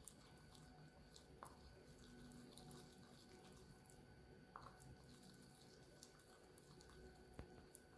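Faint wet squishing and small clicks of slime being stirred and pressed in a plastic bowl, with one sharper tick near the end.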